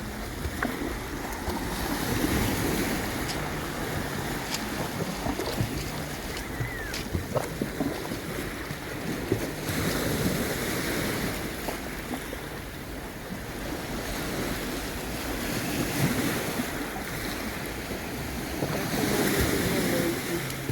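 Sea waves washing onto the shore, rising and falling in several swells, with wind buffeting the microphone.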